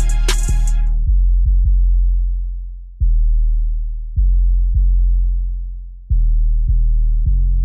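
Hip-hop style instrumental music. About a second in, the drums and upper parts drop out, leaving only deep bass notes, each struck sharply and fading out before the next.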